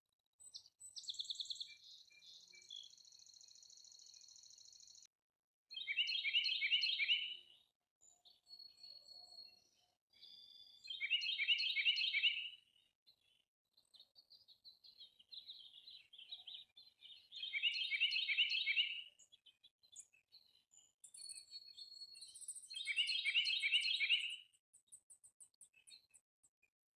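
Songbirds singing: one bird repeats a short, rapid, loud song phrase four times, about every six seconds. A thinner, higher trill is heard near the start and another high buzzy trill near the end.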